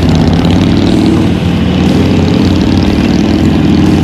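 Motorcycle engines running as the bikes ride off down the street, a loud, steady engine note that rises a little near the end.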